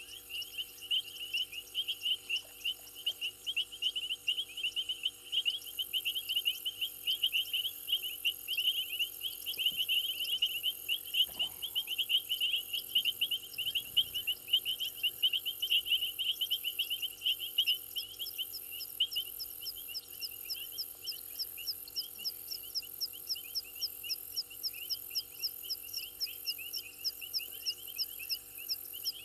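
Night chorus of frogs at a waterhole, calling in rapid, dense pulses, with a second, higher-pitched series of calls joining about halfway through, over a steady high hiss and a faint steady hum.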